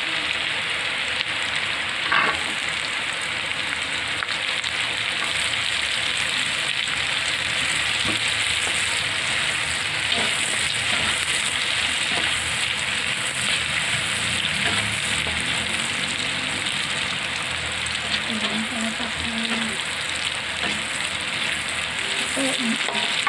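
Salted shark pieces and sliced chillies sizzling steadily in hot oil in a wok, stirred with a metal spatula that scrapes and clinks against the pan now and then.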